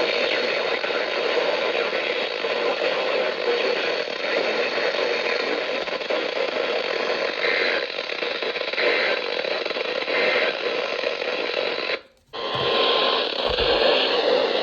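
Radio static: a steady hiss of noisy reception. It cuts out for a moment about twelve seconds in, then comes back.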